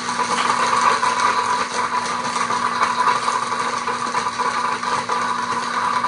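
Blender running steadily, crushing ice in milk.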